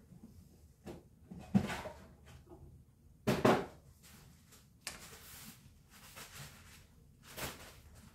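A series of wooden knocks and clunks as RoadLoft storage boxes are shifted and handled in the back of a minivan, about five in all; the loudest is a sharp knock about one and a half seconds in, followed by a heavier clunk about three and a half seconds in.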